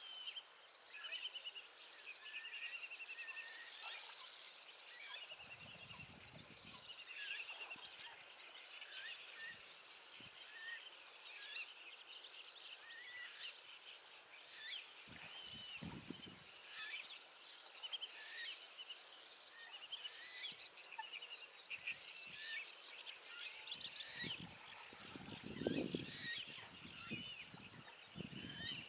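A chorus of small birds singing and calling, many rapid trills and short chirps overlapping, with a few low rumbles now and then, the loudest near the end.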